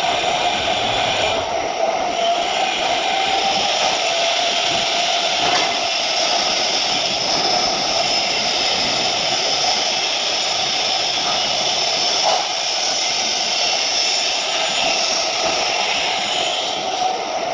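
TIG welding arc on 304 stainless steel, a steady hiss with a high, even whine that holds without a break.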